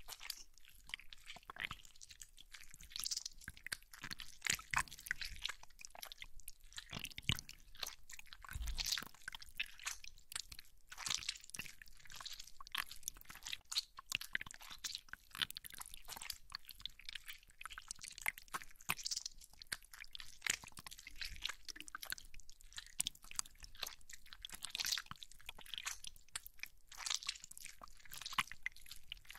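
Toy slime squished and kneaded close to the microphone: a dense, irregular run of small wet clicks and crackles.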